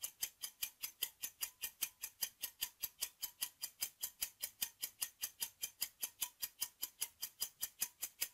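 Countdown timer sound effect: a clock ticking evenly, about four ticks a second.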